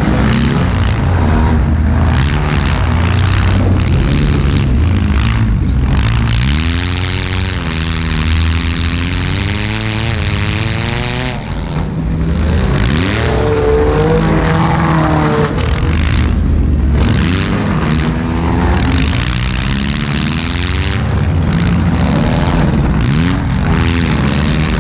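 Demolition derby car's engine running through short open upright exhaust stacks, heard close from right over the engine bay, loud and rumbling, revving up and down several times as the car manoeuvres.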